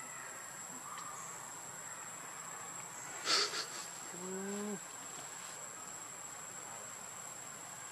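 Insects keep up a steady high-pitched drone. About three seconds in there is a brief, sharp, high sound, the loudest thing here, and just after it a half-second low-pitched vocal sound.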